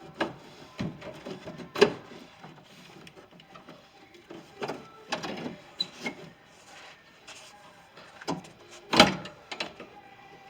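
Metal clicks, knocks and short rattles of a door latch and its linkage rod being worked loose inside a 2010 Ford F-150 rear door. There are two louder knocks, about two seconds in and near the end.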